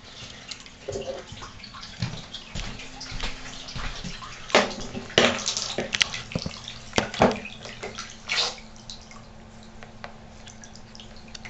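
Water splashing and dripping in a filled bathtub as a small submersible pond pump and its hose are handled, with a run of sharp splashes and knocks from about halfway in, over a faint steady hum.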